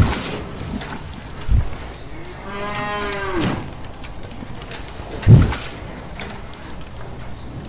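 A Holstein dairy cow mooing once, a single call about a second long starting about two and a half seconds in. A few dull thumps come with it, the loudest right at the start and about five seconds in.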